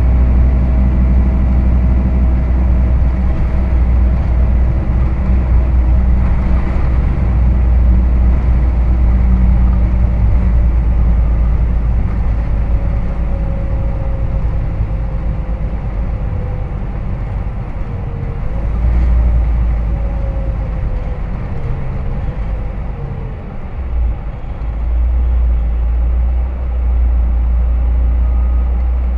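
Hino Rainbow HR city bus running on the road, heard from inside the cabin: a steady low diesel engine drone with road noise, and a faint whine that falls and rises in pitch a few times in the middle as the bus changes speed.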